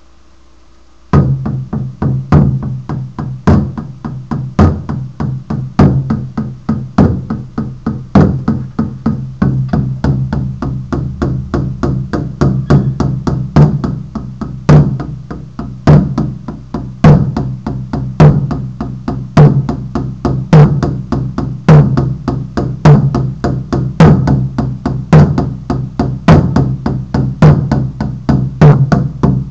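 Large hide frame drum struck with a beater in a steady rhythm, starting about a second in: a loud accented beat about once a second with several lighter strokes between, the deep drum tone ringing on under them.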